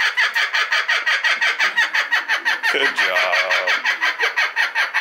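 Laughing kookaburra giving its laughing call: a long run of rapid, evenly repeated notes, about eight a second.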